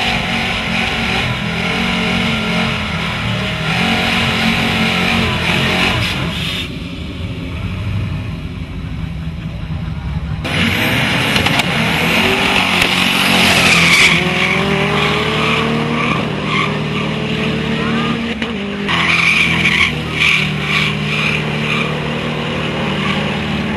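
Car engines revving hard with tyres spinning and squealing in a burnout. Later engines climb in pitch as cars accelerate away, and the sound changes abruptly a few times.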